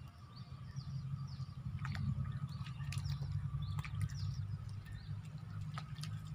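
Short, high, falling bird chirps repeating throughout, over a low steady rumble, with a few sharp clicks.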